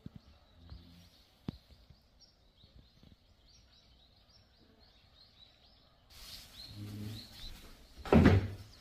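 Small birds chirping faintly, many short repeated notes, over a quiet outdoor background. About six seconds in a hiss of noise comes up, and shortly before the end a brief loud rush of noise drowns the chirps.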